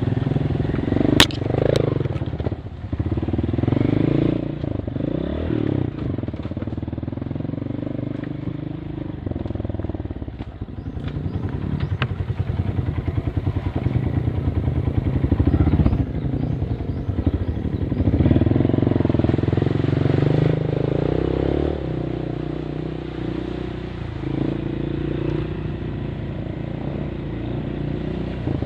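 A vehicle engine running, its pitch going up and down with the throttle, with a few sharp knocks and clatter.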